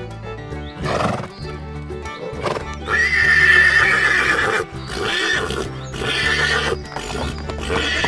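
Recorded horse sound effect over children's background music: a long whinny about three seconds in, with shorter neighs and hoof clip-clops around it.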